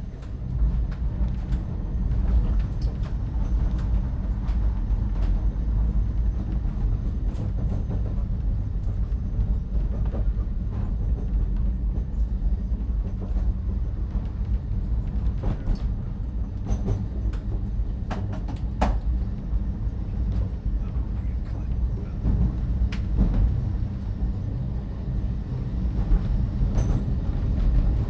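Cable-hauled Great Orme Tramway tramcar running downhill on its track, a steady low rumble with scattered clicks and knocks, several of them coming close together about two-thirds of the way through.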